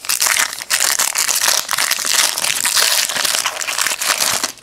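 Foil trading-card pack wrapper being torn open and crumpled by hand: a continuous loud crinkling full of small crackles that stops abruptly near the end.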